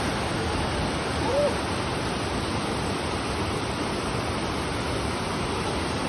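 Steady rush of a waterfall pouring down a rock slab into a pool.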